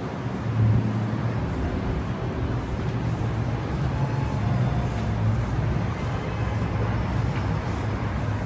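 Steady city street traffic noise with a low engine hum from passing cars.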